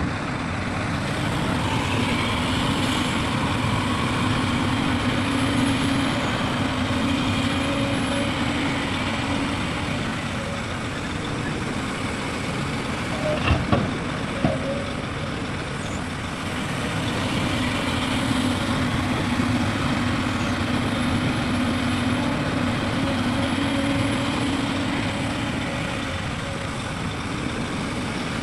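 Heavy diesel machinery running steadily, its engine note swelling twice for several seconds as if working under load, with a few sharp knocks about halfway through.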